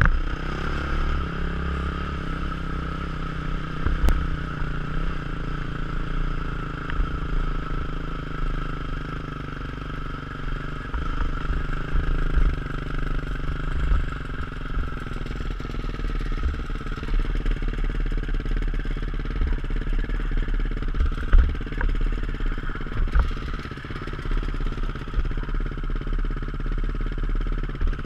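Enduro dirt bike engine running steadily as the bike rides along a gravel track, with wind rumbling on the microphone.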